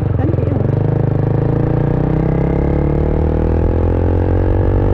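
KTM RC sport bike's single-cylinder engine pulling under acceleration, its note rising steadily for several seconds and then levelling off near the end.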